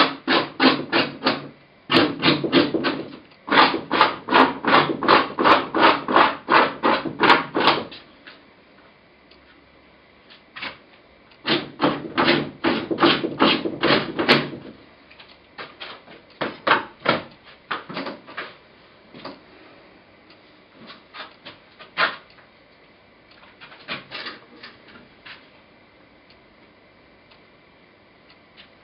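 Quick, repeated strokes of a painting tool dabbing and striking against a thickly encrusted painted panel, in runs of about four strokes a second broken by pauses, growing sparser in the second half.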